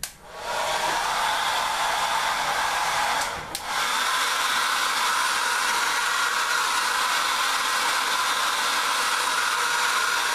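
Handheld hair dryer running on its cold setting, blowing a steady rush of air down into a sewing machine's upper channels to clear dust. Its noise dips briefly about three seconds in, then runs on evenly.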